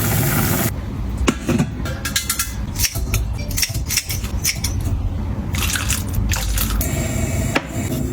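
Kitchen food-prep sounds: a steady hiss that cuts off abruptly under a second in, then scattered clicks, taps and dripping water.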